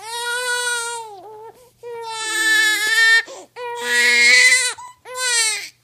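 Newborn baby crying, four long wails of about a second each with short catches of breath between.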